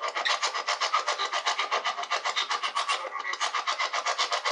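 Spirit box (ghost box) sweeping through radio stations: a rapid, even chopping of static, about eight or nine pulses a second.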